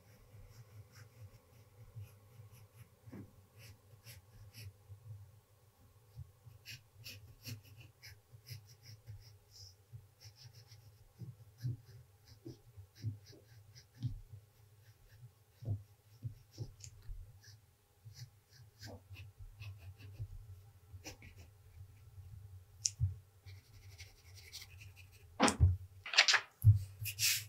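Pencil lead scratching on paper in short, irregular strokes as lines and shading are drawn, with a few louder paper rustles near the end.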